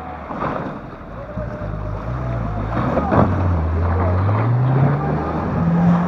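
A car engine revving under load as the car ploughs through a flooded, ice-broken puddle, its pitch climbing steadily over the second half, with water sloshing and splashing around the wheels.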